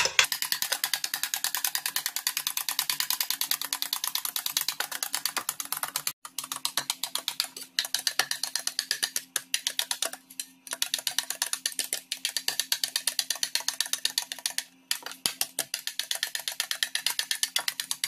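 Wire balloon whisk beating instant coffee, sugar and hot water by hand in a bowl: fast, rhythmic clicking as the wires strike the bowl, pausing briefly three times. The mixture is being whipped towards a thick cream.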